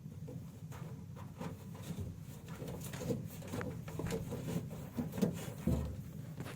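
Faint handling noises: light knocks and rustles as a dish sponge backed with double-sided tape is pressed onto the corner of a washing machine's casing, over a low steady hum.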